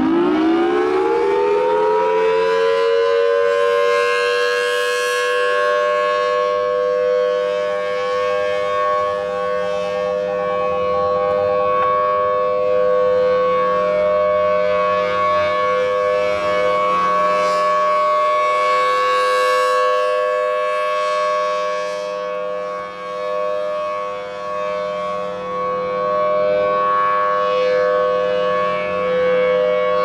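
Federal Signal Thunderbolt 1000T outdoor warning siren sounding its steady 30-second test alert: the tone finishes winding up to full pitch in the first second or so, then holds one steady pitch that swells and fades in loudness as the rotating horn sweeps around, and starts to wind down right at the end.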